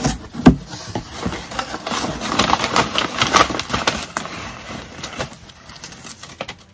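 Cardboard shipping box being opened and rummaged by hand: the flaps and paper packing rustle and crinkle, with a sharp crack about half a second in, and the handling thins out near the end.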